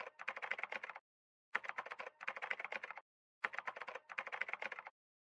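Rapid typing on a computer keyboard, in three bursts of quick key clicks about a second and a half long, each with a brief break inside it.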